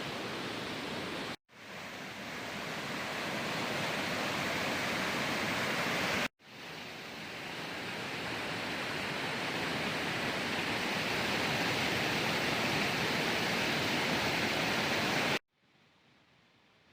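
Steady rush of a glacier-fed mountain waterfall. It cuts out twice and swells back each time, then drops away near the end.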